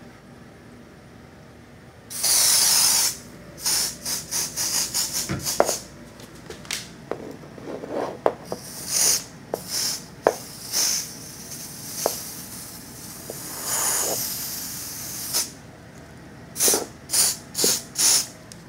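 Raid ant-and-spider aerosol can spraying in bursts: a hiss of about a second, a quick run of short spurts, more spurts and another long hiss, then four short spurts near the end. A few sharp clicks come between the bursts.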